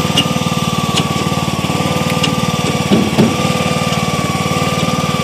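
Tractor engine running steadily under way, with a steady high whine over its even low beat and a few light rattles.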